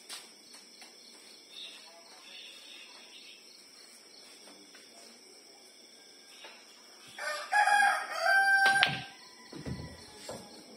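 A rooster crowing once, loud and drawn out, starting about seven seconds in, after several seconds of quiet room noise with faint clicks.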